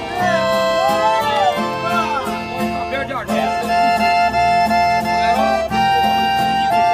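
Two piano accordions and two acoustic guitars playing a sertanejo tune together: held accordion notes carry the melody over strummed guitars and a steady, even bass beat.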